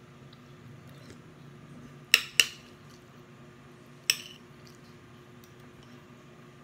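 Metal spoon and fork clinking against a glass plate: three sharp clinks, two close together and a third about two seconds later.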